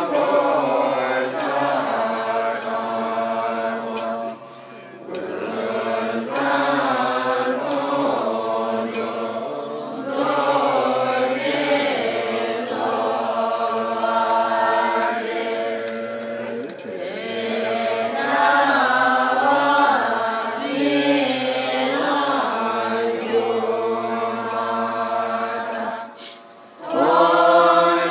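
Tibetan Buddhist liturgical chanting by a group of voices, monks leading through a microphone, a steady melodic recitation of prayer texts. It drops off briefly about four seconds in and again near the end before resuming.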